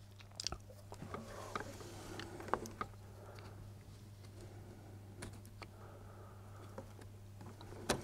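Faint, scattered small clicks and scrapes of a small flat-blade screwdriver prying at a plastic wiring connector on an EVAP purge valve, the sharpest about two and a half seconds in and again near the end, over a steady low hum.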